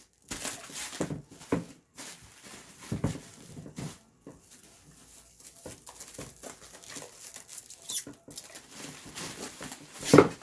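Plastic wrap crinkling and rustling in irregular bursts as it is handled and wrapped around a sewing machine, with one short, louder sound near the end.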